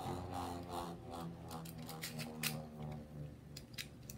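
Beyblade spinning top whirring steadily in a plastic stadium, faintly. Scattered light plastic clicks from another top being handled.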